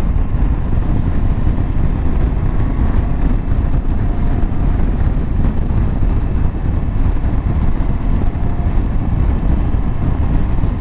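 Steady wind rush over the microphone of a motorcycle riding at road speed, with the KTM 790 Adventure's LC8c 799cc parallel-twin engine running beneath it.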